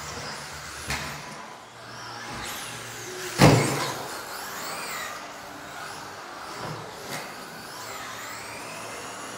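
Electric RC off-road cars running laps, their motors whining up and down in pitch as they accelerate and slow, with a loud thump about three and a half seconds in and a couple of lighter clicks.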